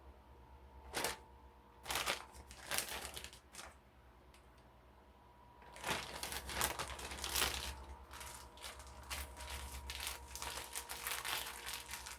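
Crinkly kitchen material being handled and crumpled: a few short crinkles in the first seconds, then steady crackling and crinkling from about halfway through.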